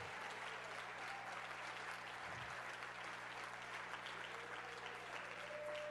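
Church congregation applauding in praise: a steady, even wash of clapping. A faint held tone comes in near the end.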